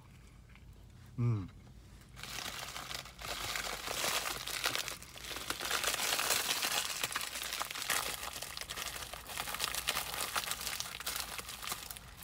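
Paper sandwich wrapper being crumpled and crinkled by hand: a dense crackling that starts about two seconds in and goes on for about ten seconds.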